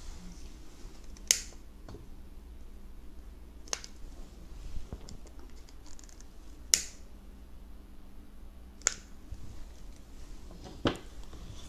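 Long-handled butane candle lighter clicked five times, about two to three seconds apart, its igniter snapping as it lights candles.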